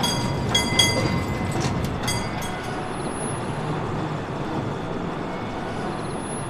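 Vintage electric tram rolling along its rails with a steady low rumble. Several quick ringing metallic strikes come in the first two seconds or so, and a faint high squeal about three seconds in.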